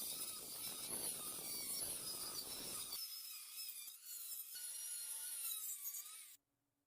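A small high-speed rotary tool runs with a high whine that wavers in pitch as it bears on the work. It grinds coarsely for the first three seconds, then runs more lightly until it cuts off near the end.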